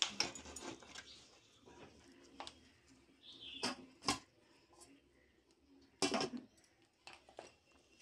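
A clear plastic clamshell food box being handled while pieces are broken off a brittle sweet inside it by hand: scattered clicks and crackles, with a louder cluster about six seconds in.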